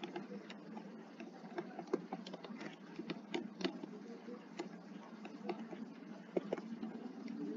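Computer keyboard being typed on: uneven keystroke clicks, about two a second.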